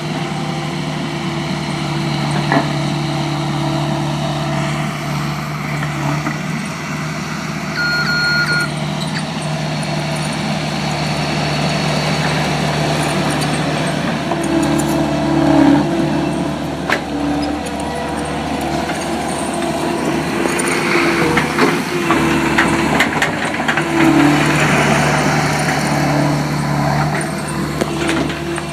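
Skid steer's diesel engine running steadily as it moves dirt, with rattling and clanking from the machine for several seconds in the second half. A short beep sounds about eight seconds in.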